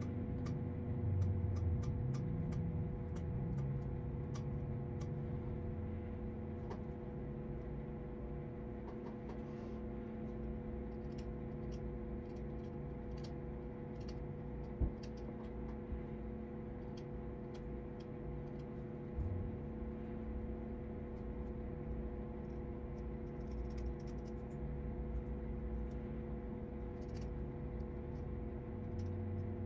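Light, irregular clicks and scrapes of a small hand tool working a fiddle's wooden body, with one sharper tap about halfway, over a steady electrical hum.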